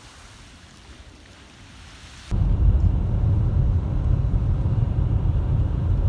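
A faint steady hiss, then after about two seconds a sudden change to the loud, steady low rumble of a vehicle driving on a snow-covered road.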